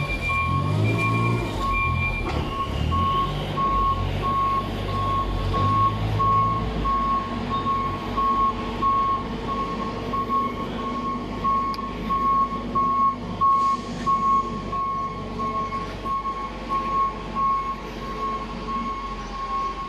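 A vehicle's reversing alarm beeping steadily, evenly spaced beeps at one pitch, over the low rumble of a vehicle engine that eases after about seven seconds.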